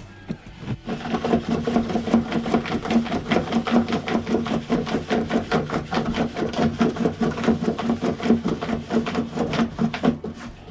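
A pregnant Shih Tzu digging at the cardboard lining of her whelping box with her front paws: rapid, steady scratching and rubbing that starts about a second in and stops near the end. This digging is nesting, a sign that she is close to giving birth.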